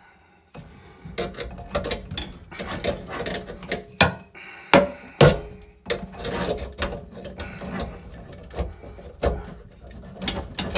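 Metal tubular tap spanner clinking, knocking and scraping against the tap's fixing nut and threaded stud as it is fitted and turned, with irregular sharp clanks among steady rattling; the loudest knocks come about four to five seconds in and again near the end.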